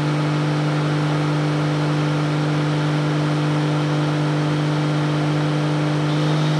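Turbocharged RB30 straight-six in a Nissan 180SX running on a chassis dyno, held at a constant speed under steady load with an unchanging drone.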